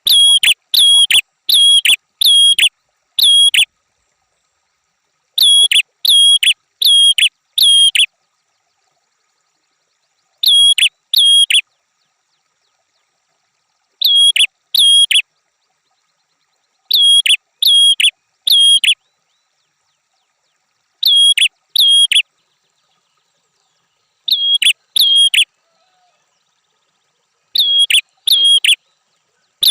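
A prenjak songbird calling in loud, sharp repeated notes. Each note is about a quarter second long and all share the same hooked shape. They come in bursts of two to five notes about every three seconds, with dead silence between the bursts.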